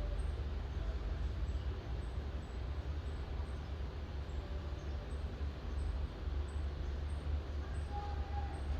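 Steady low rumble with an even hiss above it, like distant traffic or machinery.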